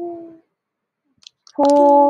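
A woman's voice reading Mandarin pinyin syllables aloud as pronunciation drill: a short held syllable at the start, then a louder, longer one about a second and a half in, both sung out on a level, unchanging pitch.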